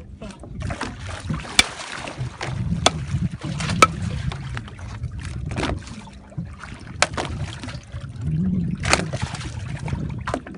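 Water moving against a small fishing boat's hull, with a low hum and sharp knocks scattered throughout.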